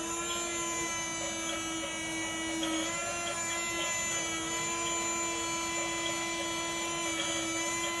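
Small electric motor in a toy RC bulldozer whining at a steady pitch. It steps up slightly about three seconds in and winds down as it stops near the end.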